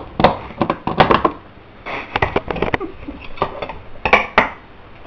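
Irregular metal clinks and knocks from a can opener working on a tin can, some in quick clusters.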